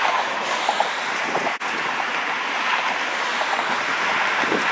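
Steady rushing outdoor background noise, dropping out for an instant about a third of the way in.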